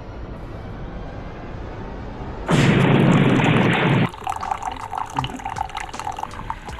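A loud explosion-like burst of noise about two and a half seconds in, lasting about a second and a half and cutting off abruptly. After it, faint scattered dripping clicks.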